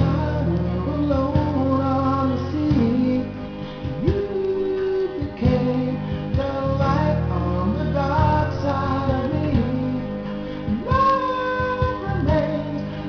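Music: a woman singing over guitar accompaniment.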